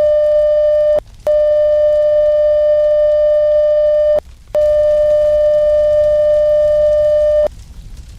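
Electronic emergency alert tone: a loud, steady, buzzy tone at one pitch, sounded in long blasts of about three seconds with short breaks between them, stopping about seven and a half seconds in. A low rumbling noise runs beneath it and is left alone at the end.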